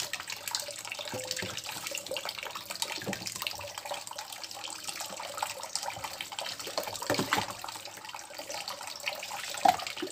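Kitchen tap running into a plastic basin in a stainless steel sink, with splashing and dripping as a wet cat's fur is rinsed and squeezed by hand. A brief, sharper sound stands out near the end.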